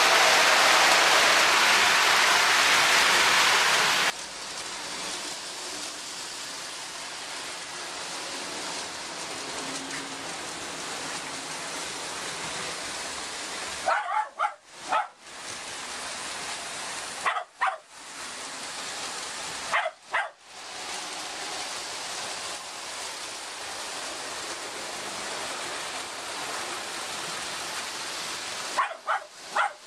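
Lionel toy trains running on the layout's track: a loud, even rush of wheels and motors for about four seconds, then a quieter steady running noise. A few short, sharp bark-like sounds break in around the middle and near the end.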